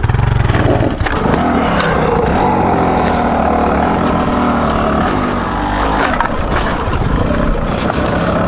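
Dirt bike engine pulling away from a slow idle and then running under throttle, its pitch rising and falling as the rider works along the trail.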